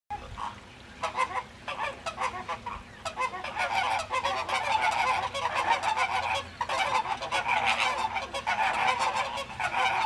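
A flock of flamingos honking, with many short goose-like calls overlapping, growing louder about three seconds in.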